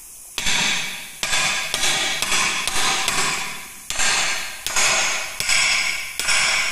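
Hammer blows, about ten in a row at roughly half-second to one-second intervals, each ringing briefly. They are struck while driving the tyre levers to work the bead of a large 18.4-26 tractor tyre off its rim.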